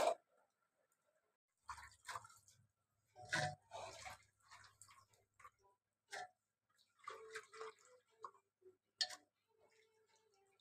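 Hands swishing green beans and potato pieces in water inside an aluminium pressure cooker: irregular splashes, drips and light knocks against the pot, with a sharp knock right at the start.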